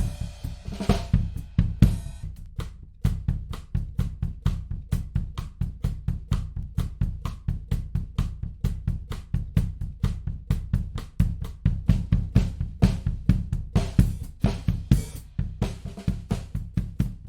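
Recorded drum kit playing a steady beat, with kick drum, snare and cymbals, run through a tape emulation plugin.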